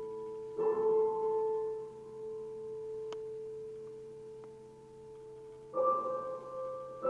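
Slow, sparse music of struck, long-ringing tones: a new note is struck about half a second in and another near the end, each ringing on and slowly fading over a held lower tone.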